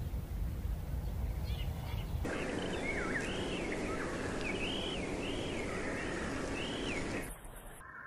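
A songbird singing a run of about half a dozen short, clear whistled notes that rise and fall, over steady outdoor hiss. The background changes abruptly about two seconds in, when the notes begin, and again near the end, when they stop and it becomes quieter.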